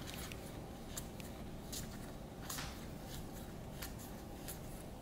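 Flesh and Blood trading cards slid one over another in the hands, giving a scattering of faint, irregular flicks and swishes of card stock.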